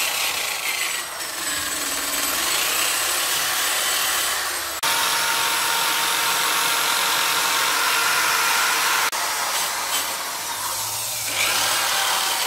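Corded drill spinning a wire wheel brush against the rusty wheel hub's mating surface, scrubbing off rust and scale: a steady abrasive grinding over the motor's whine. The sound jumps in level twice, about five and nine seconds in.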